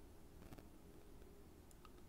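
Near silence with a few faint, short clicks, once about half a second in and a couple near the end: small metal parts of a disassembled pin tumbler lock being handled.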